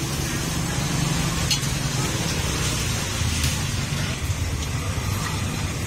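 Busy street-market ambience: motorbike engines running with a steady low rumble, and people talking in the background.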